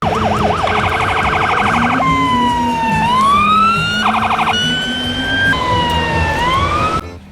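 Electronic toy siren sounding in several patterns: a quick warble, a fast pulsing yelp, then slow wails that fall and rise again, broken by a short burst of pulses, stopping abruptly near the end.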